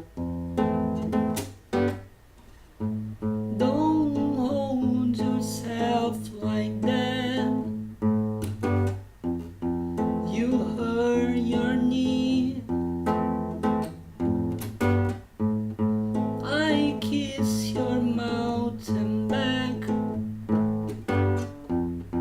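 Acoustic guitar strummed in a steady rhythm, with a voice singing the song's melody over it from about four seconds in. The guitar briefly pauses about two seconds in.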